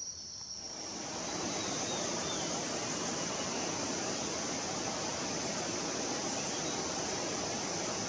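A steady high-pitched insect drone, with an even rushing noise under it that rises about a second in and then holds steady.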